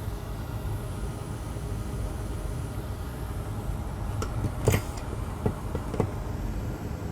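Steady low rumble of air, like a fan. In the second half come a few light clicks and taps, the sharpest near the middle, as small tools touch the circuit board.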